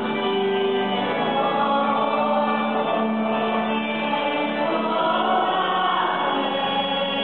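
Many voices singing a hymn together in sustained, slowly changing notes.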